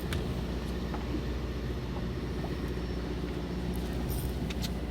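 Fishing boat's engine running steadily with a low hum, with a few faint ticks near the end.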